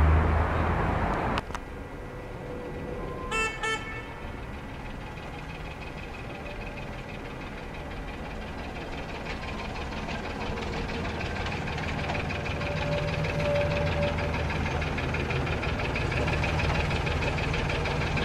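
A loud rushing noise cuts off sharply just over a second in; then a small narrow-gauge railway locomotive gives two short toots and is heard running, growing steadily louder as it approaches.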